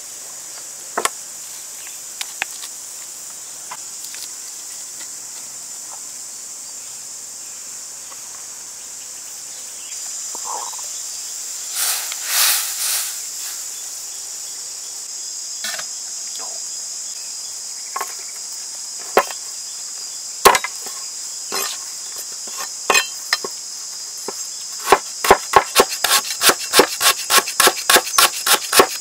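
A steady high drone of insects, with a few scattered knocks earlier on. In the last few seconds a cleaver chops quickly on a wooden board, slicing stalks into thin rings at about four strokes a second.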